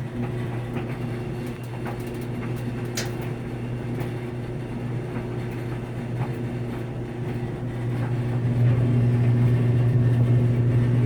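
New Samsung clothes dryer running, a steady low drum-and-motor hum with an intermittent rattle over it, growing louder about eight seconds in. The rattle sounds like something loose or metal inside the drum, though the owner finds nothing loose and it rattles with or without a load.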